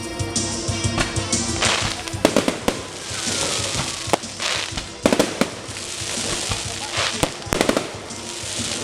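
Fireworks display: a string of sharp bangs from bursting shells, with spells of crackling hiss between them. Background music is heard at the start and fades out within about a second and a half.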